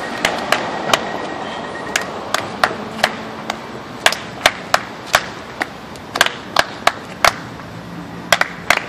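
Sharp slaps of a dancer's hands and shoes hitting a tiled floor during breaking footwork, two or three hits a second in an uneven rhythm.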